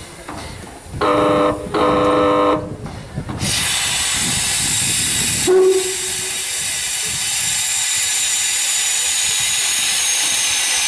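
Steam locomotive whistle sounding two short blasts, then a loud, steady hiss of steam blowing off from the locomotive.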